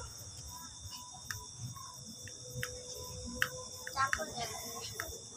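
Steady high-pitched insect trilling, like crickets, with a few faint clicks and a brief faint voice about four seconds in.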